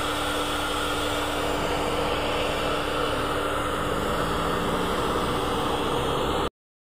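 Steady machinery noise: an even hiss with a constant low hum under it. The sound cuts off suddenly near the end.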